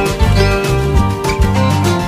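Background music with a steady beat, plucked guitar-like notes over a bass line.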